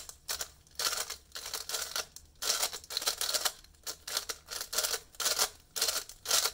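A brand-new GAN Skewb speed puzzle being turned quickly by hand: repeated bursts of plastic clicking and scraping as its corner pieces rotate, several turns a second in quick runs. It is fresh out of the box and not yet set up, and it feels a little slow.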